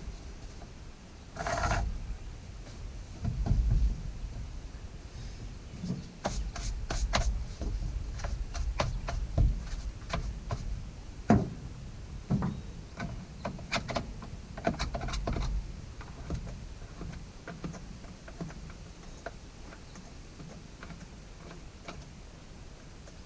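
Plastic-and-metal clicks, knocks and rubbing from a battery chainsaw being handled and adjusted by hand, the saw not running; the clicks come thickest in the middle of the stretch.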